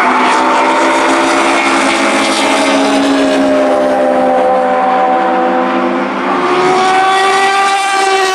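Several race car engines running hard through a corner, their notes slowly falling in pitch as they go by. About six seconds in, another engine comes in, its note climbing as it accelerates.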